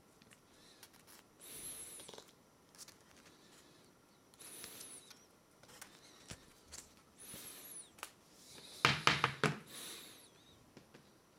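Hands handling an iPad while a SIM card is fitted into it: four short bouts of rubbing and scraping with faint squeaks. The loudest bout comes near the end, with a cluster of clicks.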